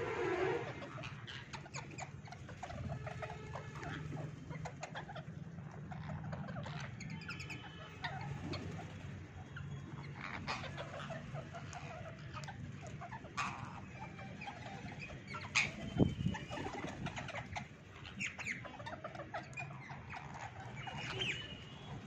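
A flock of rose-ringed parakeets feeding on dried corn cobs: short squawks and chatter over frequent sharp clicks of beaks cracking kernels, with a steady low hum underneath.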